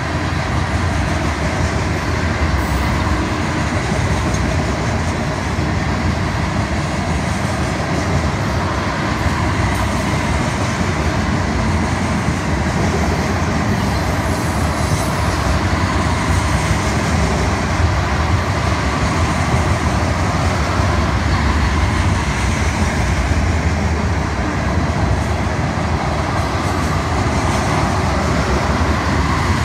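Freight train tank cars rolling steadily past, steel wheels running on the rails.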